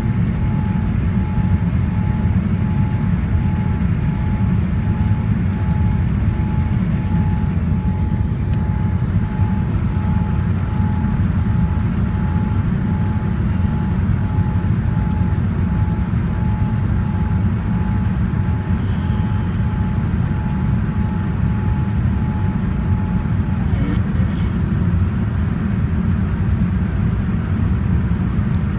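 Airliner cabin noise of a Boeing 787-9 in flight: a steady, heavy low rumble of engine and airflow noise, with a faint steady whine that stops about 23 seconds in.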